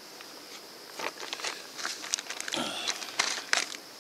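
Plastic zip-top bag crinkling and crackling as it is handled, a dense run of rustles and light clicks starting about a second in and stopping just before the end. A steady insect drone runs underneath.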